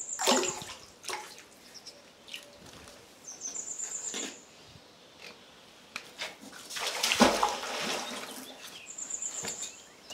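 Water splashing as a magnet-fishing magnet moves through the water, in irregular bursts, the loudest about seven seconds in.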